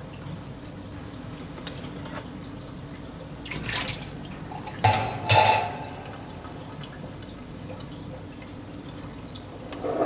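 DeLonghi Dedica espresso machine running descaling solution out through its steam wand into a stainless steel jug: a steady low hum, with water spurting and sputtering into the jug in two sharp loud spurts about five seconds in. Near the end there is a metallic clatter as the jug is picked up.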